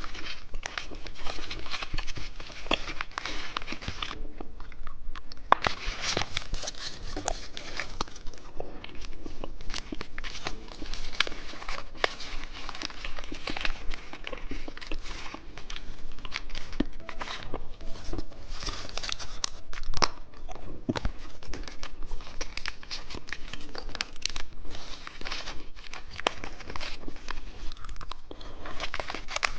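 Close-miked crinkling and tearing of plastic candy wrappers, mixed with crisp bites and crunching of candy, in dense, irregular crackles with a short lull about four seconds in.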